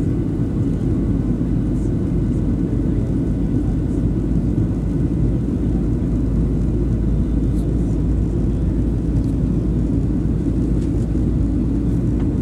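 Jet airliner cabin noise during the climb after takeoff: engines and airflow make a steady, deep rumble, heard from inside the cabin.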